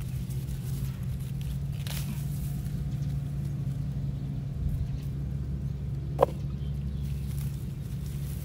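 Lemongrass stalks being cut and handled with a knife: a few brief crisp sounds, one sharp snap a little after six seconds in, over a steady low rumble.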